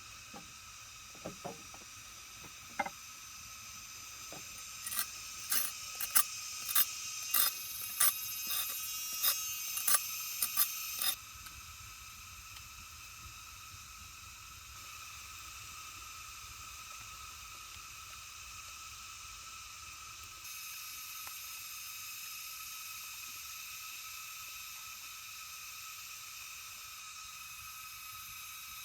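Forest night ambience: a steady high-pitched drone of insects. Partway through, about ten sharp clicks come roughly every half-second.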